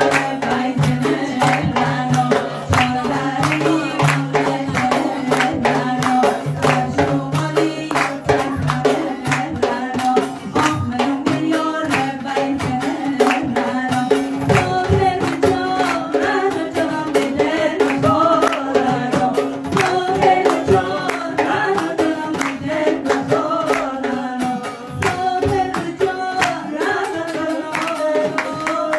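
Folk song: voices singing over a hand drum beating a steady, quick rhythm. A low held note sounds under it for about the first nine seconds.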